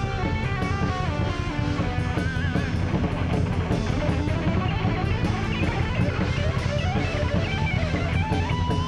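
Heavy metal band playing live: electric guitar lead lines over drums and bass, with fast runs of notes at the start, a bent note about two seconds in, and a long held note with wide vibrato near the end.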